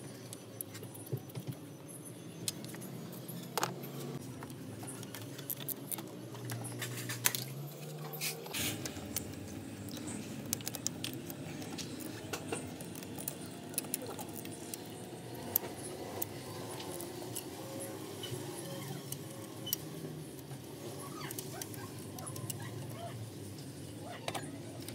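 Scattered metallic clicks and clinks of hand tools and fittings being handled while the fuel hoses and pipes are refitted around a diesel high-pressure fuel pump, over a low steady hum.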